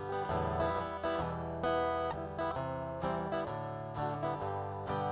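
Acoustic guitar strummed in a steady rhythm, moving through chord changes in an instrumental passage with no singing.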